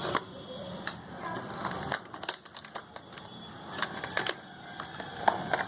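Earphone retail packaging being opened by hand: a run of irregular clicks, taps and crinkles as the box and its inner parts are handled.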